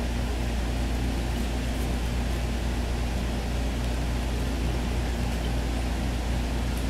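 Steady low hum with an even hiss of room background noise, unchanging throughout.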